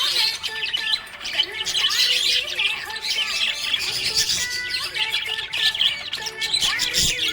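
Budgerigars chirping and chattering without pause, with many quick, high chirps and squawks.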